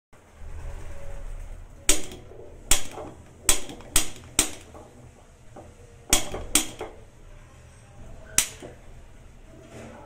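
Handheld piezo spark lighter clicking at a gas stove burner: about eight sharp snaps, some in quick pairs, each with a short ring.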